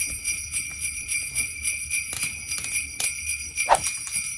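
Sleigh bells jingling, shaken in a steady rhythm of several shakes a second with a bright ringing that carries between shakes. A single sharper knock sounds a little before the end.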